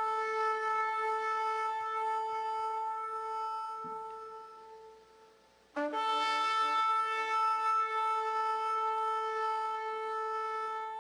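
A trumpet call: two long held notes on the same pitch. The first fades out about five seconds in, and the second starts abruptly just after and holds steady.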